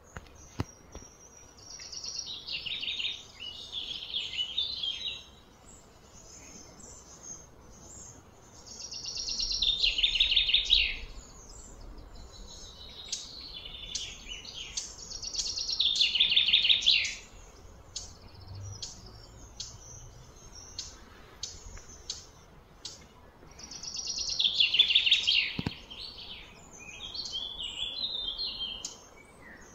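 A songbird singing: a fast trilling phrase of about three seconds, repeated four times, with scattered short chirps in between.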